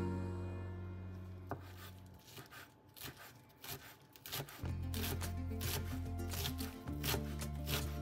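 Background music fades away and comes back about halfway through. Over it, in the second half, a knife strikes a cutting board in quick, irregular chops.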